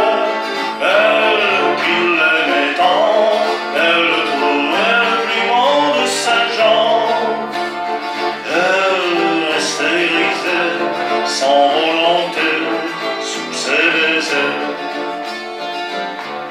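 Live acoustic performance of a French musette waltz: strummed guitar accompaniment under a gliding, phrase-by-phrase melody line.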